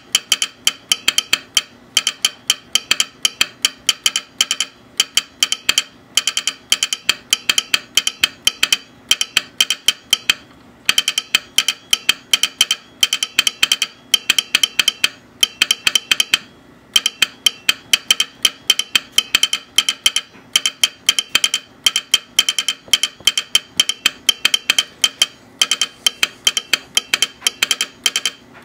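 Telegraph sounder clicking out American Morse code, keyed by an Instructograph's punched paper tape: rapid sharp clicks in clusters that form characters and words, broken by short gaps and a couple of longer pauses.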